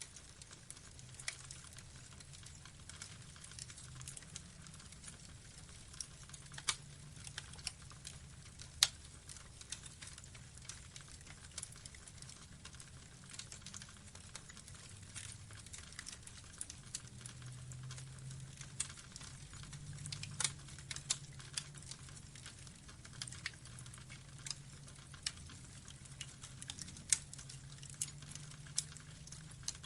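Burning wood logs crackling: irregular sharp pops and snaps, a few of them louder, over a low rumble.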